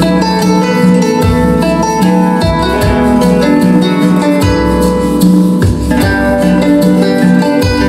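Instrumental music with plucked guitar, played loud through full-range column speakers driven by a Class H power amplifier under a sound check.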